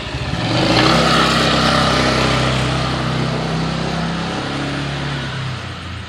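A car or motorcycle passes close by with its engine running at a steady pitch. It is loudest about a second in, then fades over the next few seconds.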